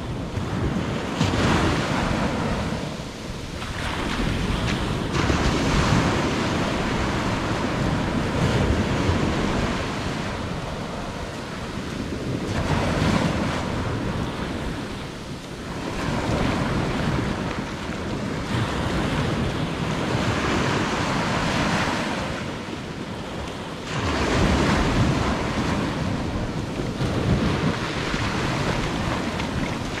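Surf breaking and washing up the beach, the noise of the waves swelling and falling away every few seconds, with wind rumbling on the microphone.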